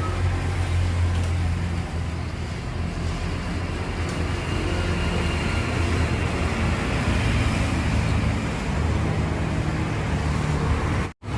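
Truck engine running steadily with the air conditioning on: a low, even hum under a steady rushing fan noise. The sound cuts out for an instant near the end.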